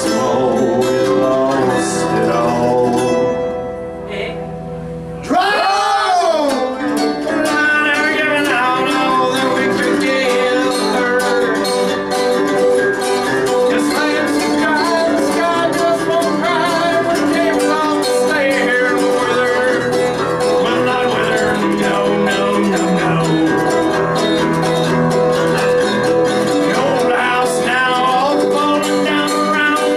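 Live acoustic country/bluegrass-style music: acoustic guitar and another plucked string instrument with singing. The music thins out and drops quieter for about two seconds near the four-second mark, then comes back in full just after five seconds.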